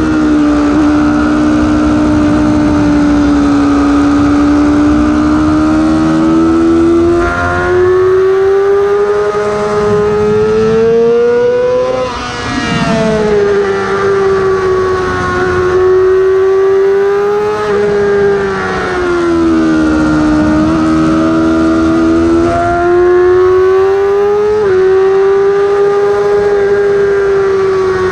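Yamaha YZF-R6's 600 cc inline-four engine at high revs, heard from on board the bike, its pitch rising and falling as the throttle is worked through the corners. Its pitch jumps abruptly a few times at gear changes between third and fourth.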